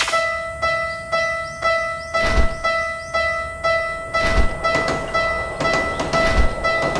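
Level crossing warning bell ringing its repeating 'kan-kan', about two evenly spaced ringing strokes a second. From a little after two seconds in, a low thud joins about every two seconds.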